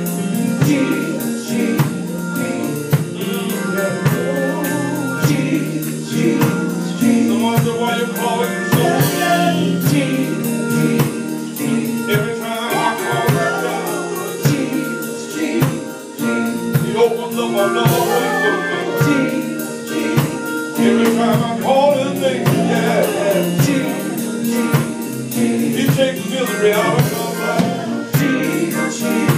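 Live gospel group singing with a backing band in a church, several voices over held low notes and a steady drum beat.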